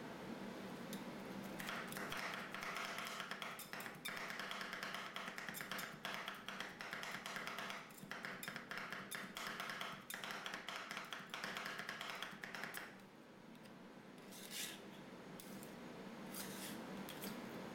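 Two metal spatulas chopping and scraping on the steel cold plate of an ice cream roll maker, a fast run of taps and scrapes as they work the frozen mixture. The chopping eases off about two thirds of the way through, leaving a few scattered taps before it picks up again near the end.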